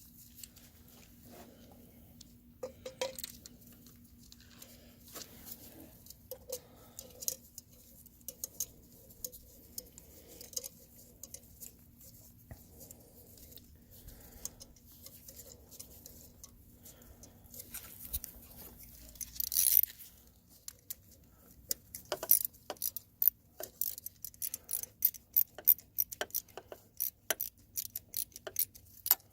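Scattered light clicks and taps, coming thicker and faster in the last several seconds, over a faint steady hum.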